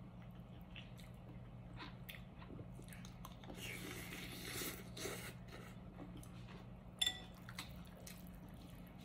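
Someone eating rice noodle soup: chewing, and slurping broth from a spoon about four seconds in. About seven seconds in, a ceramic spoon clinks sharply against the bowl. A steady low hum runs underneath.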